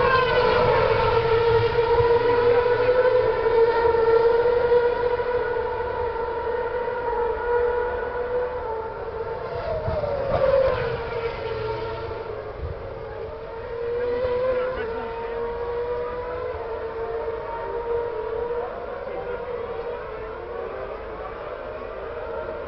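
Formula 1 car engine running at high revs, a steady high-pitched note that wavers slightly, with a quick falling sweep about ten seconds in. The sound slowly gets quieter toward the end.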